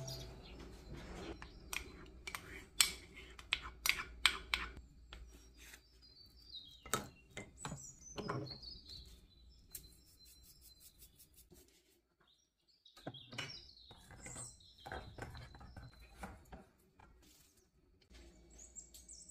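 A spoon clinking and scraping against a stainless steel bowl while plain yogurt is spooned in and stirred, in scattered sharp knocks. Small birds chirp in the background, in short calls that slide downward in pitch.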